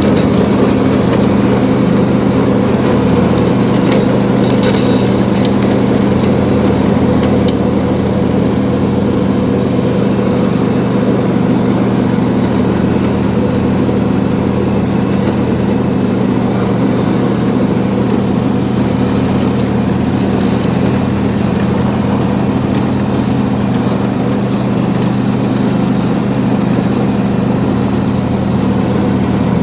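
Riding lawn mower's engine running at a steady speed while mowing, heard close from the seat, with a few faint ticks about four to five seconds in.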